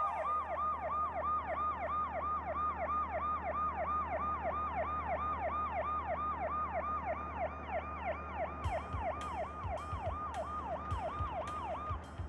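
Police siren in fast yelp mode: a wail that falls in pitch and repeats about three times a second, cutting off near the end. A drum beat with cymbal ticks comes in underneath about nine seconds in.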